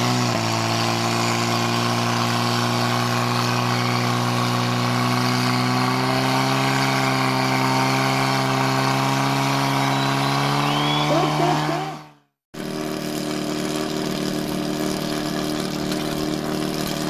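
Portable fire pump engine running at high revs, pumping water to the hose lines, with a steady note that creeps slightly higher. About twelve seconds in the sound drops out for a moment and comes back as another steady engine note.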